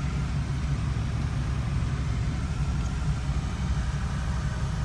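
Steady low rumble of a car running.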